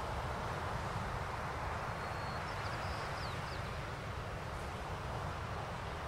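Steady outdoor ambience: an even rushing noise with a low rumble underneath, and a few quick, high bird chirps about two and a half seconds in.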